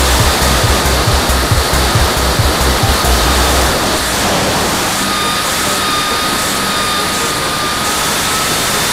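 Wind rushing over a camera mounted on the nose of a radio-controlled F3F slope glider in flight. Heavy low wind buffeting hits the microphone for the first few seconds and then stops, and a steady high tone sounds from about five seconds in.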